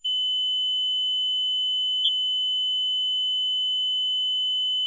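A steady, high-pitched electronic beep held at one pitch, with a slight blip about two seconds in.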